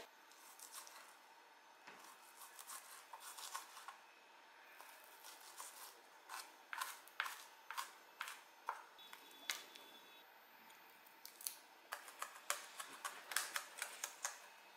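Kitchen knife chopping onion on a cutting board: faint, sharp taps that come irregularly at first, then in quicker runs of a few strokes a second near the end.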